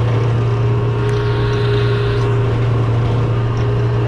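Large fishing boat's engine running, a steady low hum.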